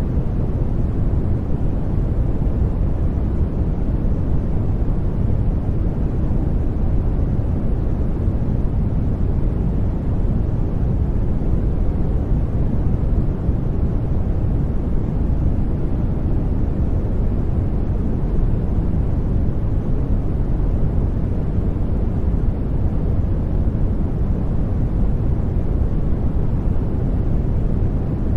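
Steady sleep noise track: an even, unchanging hiss weighted toward the low end, with little treble.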